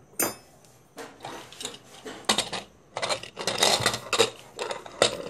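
Metal lid of a pressure cooker being fitted and closed: a sharp click about a quarter-second in, then irregular clusters of metallic clinks and clatters.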